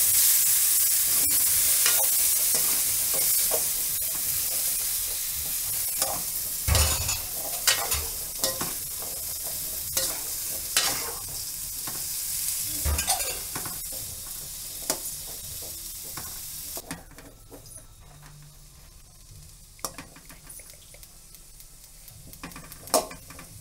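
Boiled chickpeas sizzling in oil in a metal kadai while a slotted metal spatula stirs and scrapes them, with clicks and a few heavier knocks of the spatula on the pan. The sizzle cuts off sharply about two-thirds of the way through, leaving quieter scraping and clinks.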